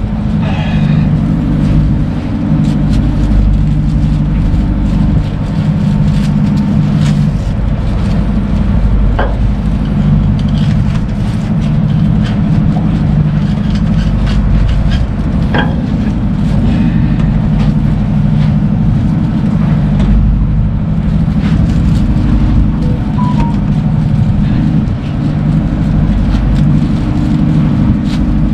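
Ship's engine running with a steady low drone, with a couple of faint clicks.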